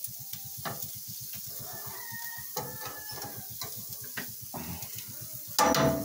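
Chicken and pork chops sizzling on a grill, with chickens calling in the background. A loud, short sound comes near the end.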